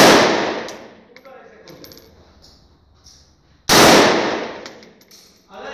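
Single shots from a vz. 58 assault rifle in 7.62×39 mm: one just as the sound begins and another about three and a half seconds later, each a sharp crack that dies away over about a second. A few faint clicks come between them.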